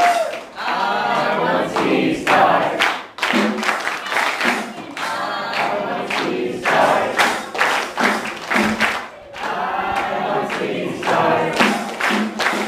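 Voices singing a song over music.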